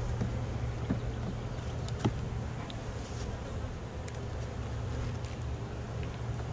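Honeybees humming steadily around an opened nuc hive, with a few light wooden knocks as the frames are worked with a hive tool, the sharpest about two seconds in.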